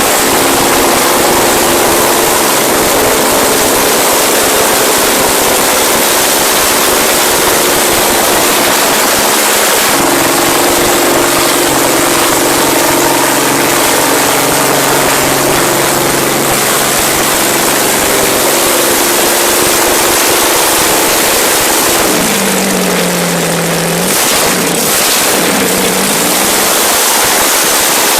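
A large engine running loudly, with a steady hum under a heavy wash of mechanical noise. Near the end its pitch drops twice and comes back up, as the engine slows and picks up again.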